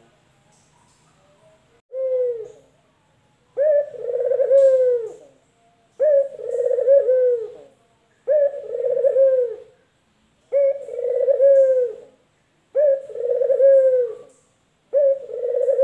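Caged male collared dove (puter lokal) cooing over and over: about seven calls, one every two to two and a half seconds, each a short sharp opening note followed by a longer rolling coo.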